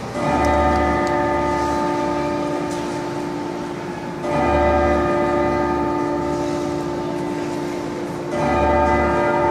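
Figure-skating program music played over the rink's loudspeakers: long held chords over a deep bass, with a new chord coming in three times, about every four seconds.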